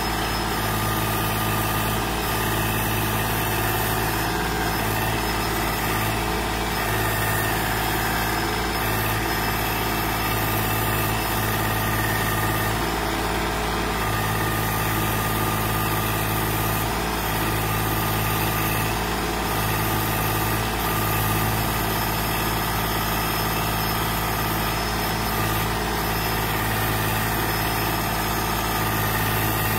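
Compact tractor engine running steadily while its rear backhoe digs. A low drone swells and drops every second or two as the hydraulics work.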